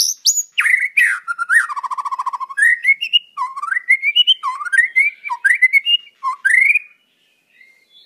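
White-rumped shama singing a run of varied, clear whistled phrases with rising and falling notes, including a fast rattling trill about two seconds in; the song stops about a second before the end.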